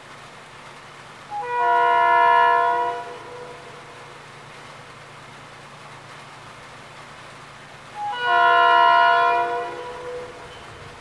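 Railroad air horn sounding a chord of several notes in two long blasts, each just under two seconds and about six seconds apart, from an approaching train.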